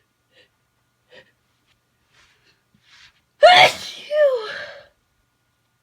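A person sneezing once, loudly, after a few faint sniffs and a quick intake of breath. The sneeze breaks out about three and a half seconds in, with a second burst falling in pitch right after it.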